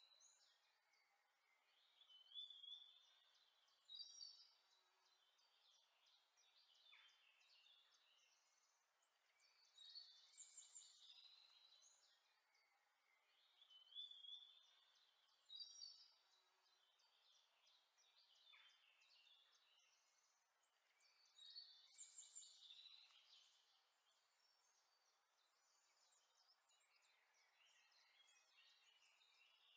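Faint birdsong: bursts of chirps and short whistled calls every few seconds, with the same sequence of calls repeating about every twelve seconds, as in a looped nature-sounds track.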